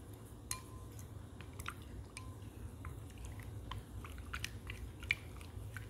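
Wooden stick stirring water and shaving cream in a glass bowl: scattered small clicks and soft squishes over a low steady rumble.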